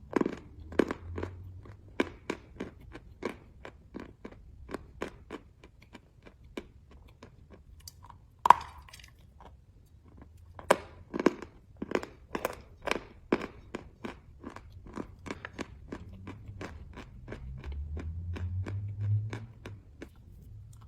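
Chalk being chewed close to the microphone: a steady run of sharp crunches, about two a second, broken by one loud snap of a fresh bite about eight seconds in.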